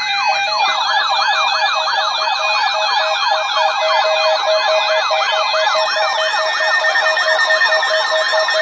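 Electronic siren tones in a fast yelp, several layers sweeping up and down several times a second over a steady pulsing beep. More high-pitched tones join about six seconds in.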